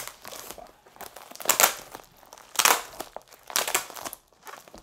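Black plastic poly mailer bag crinkling as hands grip and pull at it, trying to tear it open. There are three louder crinkles about a second apart, with softer rustling between them.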